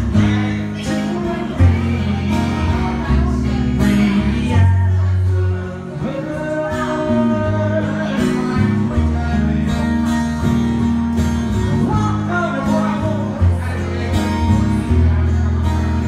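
Acoustic guitar strummed and picked in a live solo performance, with a man singing over it.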